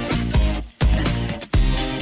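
Background music with a steady beat and strong bass notes, about two and a half beats a second.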